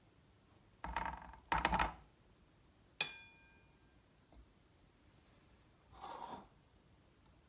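Dishes and food being handled: two short scraping rustles, then a sharp clink of a dish or cutlery that rings briefly, and a softer scrape later.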